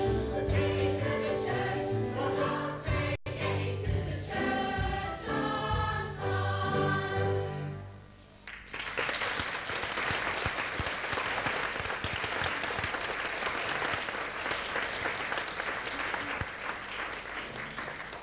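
A large stage chorus singing a show tune with instrumental accompaniment, ending on a final chord about eight seconds in, followed by sustained audience applause that gradually dies down.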